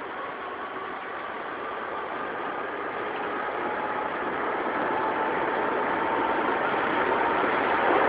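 Wuppertal Schwebebahn's 1900-built Kaiserwagen suspension-railway train approaching along its overhead steel track, its running noise growing steadily louder, with faint thin high tones in it.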